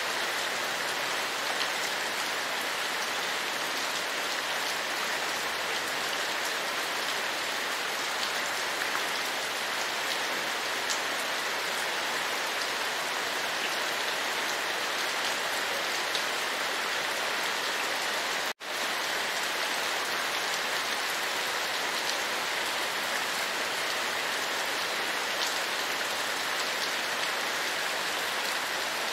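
Steady rain: an even hiss with faint scattered drop ticks. It cuts out for an instant about two-thirds of the way through.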